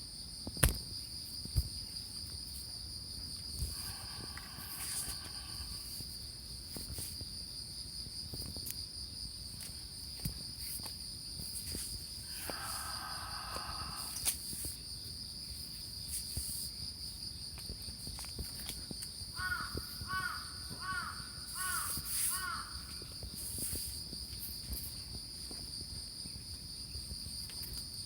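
Steady high trilling of insects, with a crow cawing twice and, about twenty seconds in, another bird giving short chirps about twice a second. Two sharp clicks sound about a second in.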